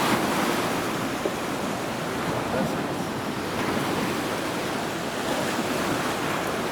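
Sea waves washing steadily on the shore.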